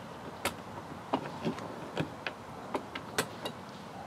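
Small steel nuts clicking as they are set by hand into the recesses of a RAM mount base plate lying on a plastic trim panel: about ten light, irregular clicks and taps.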